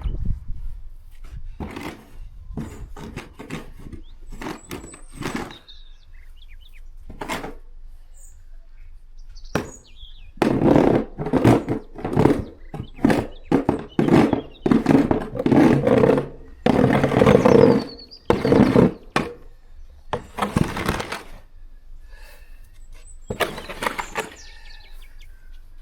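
Snow shovel scraping and scooping fresh snow, a run of noisy strokes about a second apart, closely packed through the middle and a few more near the end.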